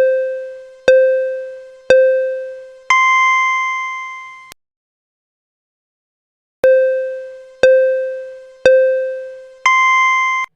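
Electronic countdown beeps played twice: three short lower beeps about a second apart, then a longer beep an octave higher that cuts off sharply. A silent gap of about two seconds separates the two sets.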